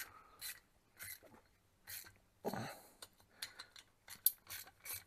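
Light, scattered metal clicks and scrapes of a small hand tool with a 10 mm socket snugging the nuts onto the oil cooler's studs, only snug and not yet torqued. The clicks come loosely, bunching up past the middle.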